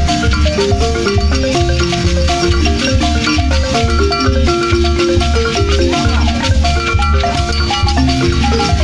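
Several balafons, West African wooden xylophones with gourd resonators, playing a fast interlocking pattern of struck notes over a steady low beat about twice a second.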